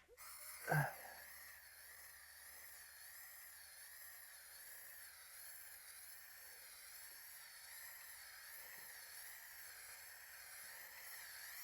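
Aerosol spray paint can spraying a steady, faint hiss. A short vocal sound about a second in.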